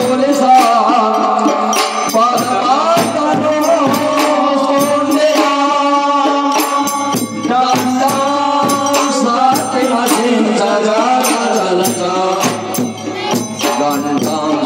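Loud Indian folk devotional music with a steady percussion beat, jingling rattles and a wavering melody line.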